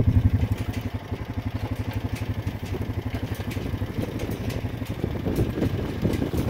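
A vehicle engine idling, with a steady, fast, low pulse.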